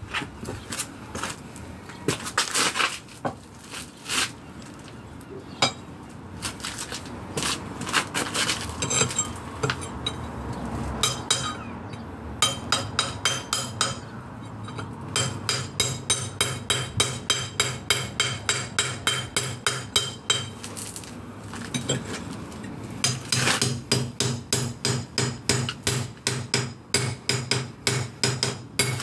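Hammer blows on a chisel chipping at a concrete block pillar: scattered knocks and scraping at first, then long runs of quick, even strikes at about three a second, with a short pause about two-thirds of the way in.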